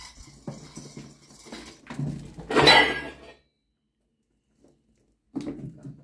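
Kittens playing with toys on a hard floor: scuffling, small knocks and a clinking rattle from a toy ball. The loudest burst comes about two and a half seconds in, and a shorter scuffle follows near the end.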